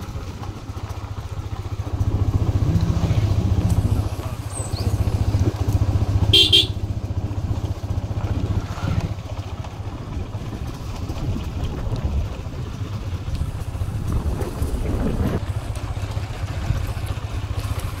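Motorcycle engine running steadily, with a short high-pitched sound, perhaps a horn toot, about six seconds in.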